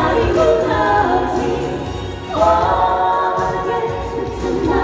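Live music: female singers performing an amplified song over band accompaniment with a steady bass line.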